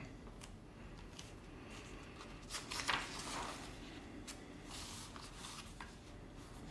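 Pages of a paperback book being turned and smoothed down by hand: soft paper rustles with a few light taps, the loudest rustle about three seconds in.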